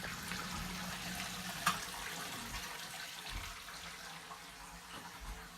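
Steady rush of running water that slowly fades, as a newly installed sump pump drains a flooded basement.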